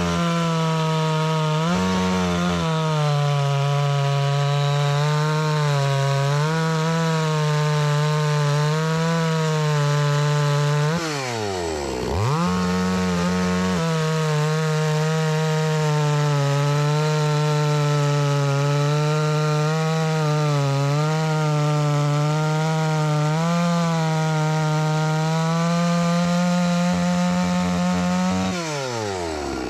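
Chainsaw at full throttle, ripping a log lengthwise along the grain, its engine note holding steady under the load of the cut. About eleven seconds in the revs drop sharply and climb straight back to full speed, and near the end the revs fall away.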